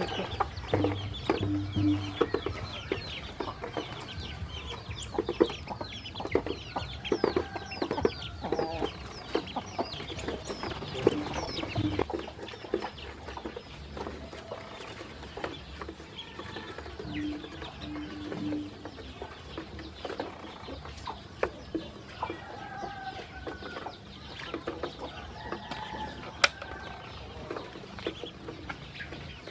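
Ducklings peeping continuously in many short, quick chirps, with light ticks of their bills pecking feed off a plastic toy truck bed.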